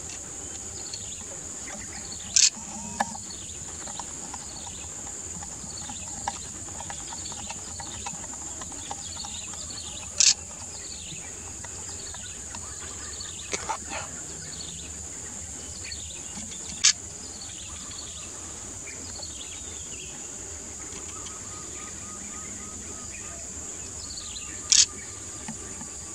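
Steady high-pitched insect drone with many short chirps scattered over it. Four sharp clicks stand out, a few seconds apart.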